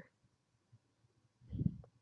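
Mostly quiet room tone, with one soft low thump about one and a half seconds in, followed by a faint click.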